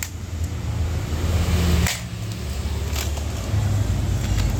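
Hard plastic toy figures clacking against each other as a hand shifts them around in a plastic basket, a few sharp clacks over a steady low rumble.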